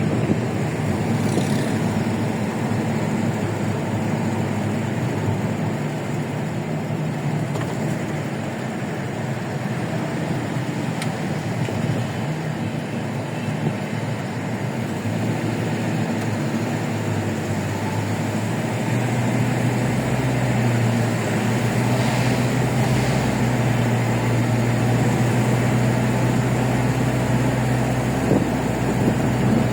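Steady engine and tyre noise of a vehicle being driven, with a deeper, steadier low hum coming in about 19 seconds in.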